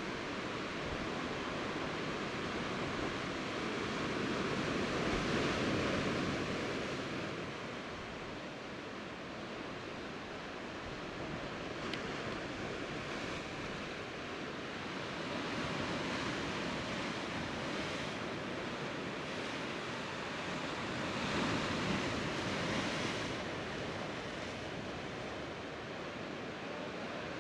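Sea surf washing against a rocky shoreline, a steady rush that swells and eases every several seconds.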